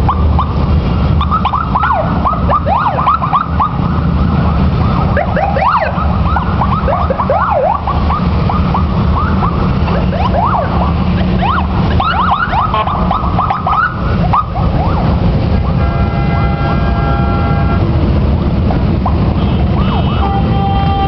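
Motorcycles riding past in a parade, a loud, steady engine rumble. Over it, for the first two-thirds, a string of short up-and-down whistling glides; later a steady horn-like tone sounds for about two seconds, and again near the end.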